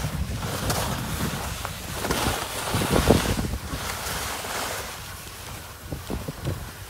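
Wind buffeting the microphone over the hiss and scrape of skis sliding on packed snow during a downhill run. It swells and is loudest about three seconds in, then eases off.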